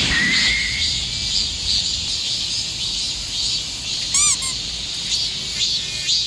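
Cicadas singing in a loud chorus, the high buzz swelling and fading about two to three times a second. A short two-note bird call comes about four seconds in.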